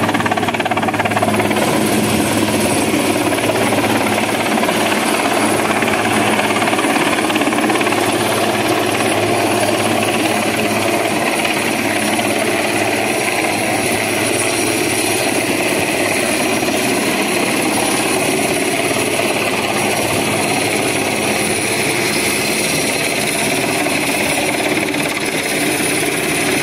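Steady engine drone of a small boat under way, mixed with wind and rushing water noise.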